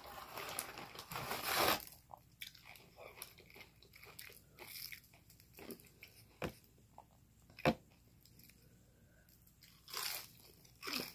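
A person biting into and chewing crunchy fried fast food. A loud crunch comes in the first two seconds, then quieter chewing with a couple of sharp clicks, and more crunching near the end.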